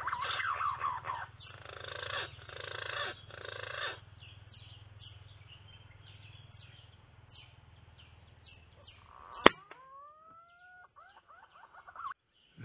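Birds calling in the trees with short chirping, gliding calls for the first few seconds. Then a single sharp air-rifle shot about nine and a half seconds in, followed by a few whistling bird calls that rise and then level off.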